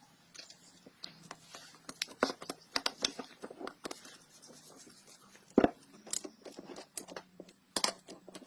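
Tools and metal engine parts being handled on a workbench: irregular clicks, taps and scrapes, with one louder knock about halfway through.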